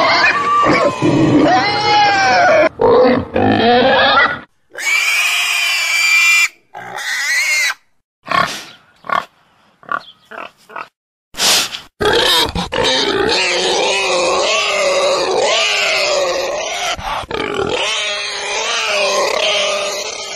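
Domestic pigs grunting and squealing. A loud high squeal and several short separate calls with brief gaps come before a long, dense, unbroken run of grunting in the second half.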